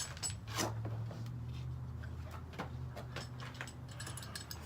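A few scattered light clicks and scrapes from the cracked plastic fidget cube being handled, over a steady low hum.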